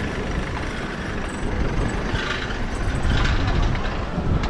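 City street traffic with a heavy road vehicle's engine running close by, a steady low-pitched noise.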